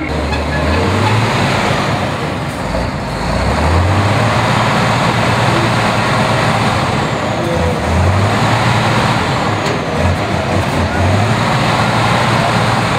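Heavy off-road trial truck's diesel engine working hard under load as it climbs a steep dirt bank, the revs rising and falling several times.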